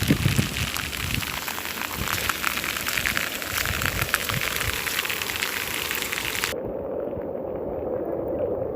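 Dense, crackling rush of water, like rain or flowing floodwater. About six and a half seconds in, the high hiss cuts off abruptly and a duller, lower rush remains.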